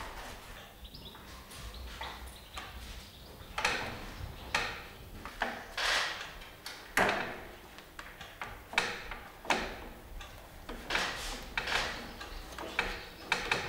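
Irregular scraping and rubbing strokes with a few sharp clicks, roughly one every half-second to second, from hand work on a crocodile taxidermy mount.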